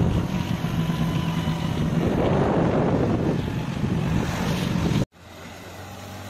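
Wind buffeting the microphone of a moving two-wheeler, over a steady low engine hum. About five seconds in it cuts off abruptly to quieter road traffic and engine sound.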